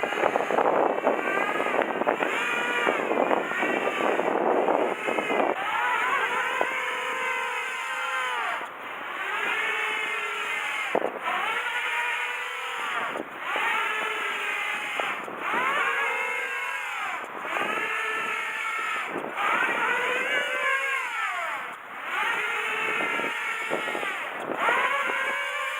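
Electric radio-controlled model aircraft's motor and rotor whine rising and falling in pitch about every two seconds as it throws 3D aerobatic manoeuvres. Strong sea wind on the microphone over the first few seconds.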